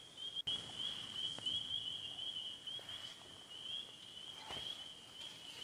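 A steady, high, pulsing trill from a night chorus of calling animals carries on throughout. Under it are faint splashes of a hooked walleye at the water's surface, about a second and a half in and again near the end.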